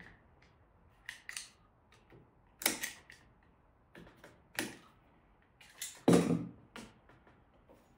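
Utility knife cutting the solid rubber tyre of an aluminium scooter wheel: a handful of short, separate cutting and scraping sounds. The loudest comes about six seconds in, as the tyre is worked off the rim by hand.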